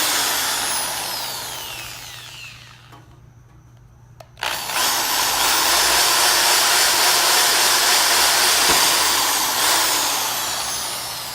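Power drill boring a mounting hole through a car's front chin spoiler. The motor winds down over the first few seconds and stops briefly, starts again suddenly about four and a half seconds in and runs steadily, then slows near the end.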